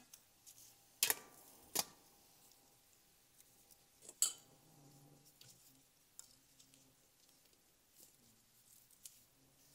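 Serving tongs, bowls and dishes clicking and clinking as steamed dumplings are served out of a steamer: a few sharp clicks about a second in and just after four seconds, then softer ticks.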